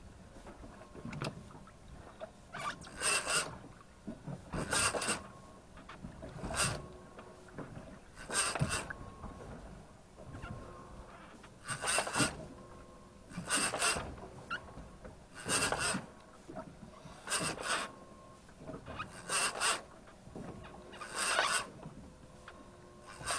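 Fishing reel on a heavy trolling rod being cranked in short bursts about every two seconds, pump-and-wind, with a large dusky grouper pulling on the line.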